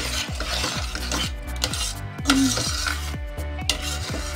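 Metal spoon stirring a thick cheese sauce in a stainless steel saucepan, scraping and clinking against the pan, over the steady hum of a kitchen range hood fan.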